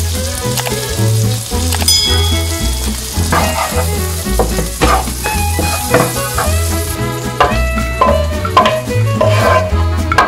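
Diced bacon sizzling as it fries in a non-stick pan, stirred now and then with a wooden spatula. The sizzle fades about two-thirds of the way in. Background music with a steady bass beat plays throughout.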